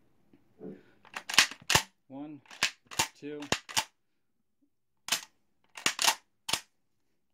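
Benelli M4 Tactical 12-gauge semi-automatic shotgun's bolt being racked by hand over and over, each stroke a pair of sharp metallic clacks, in several quick groups. Each stroke ejects an unfired shell from the loaded gun.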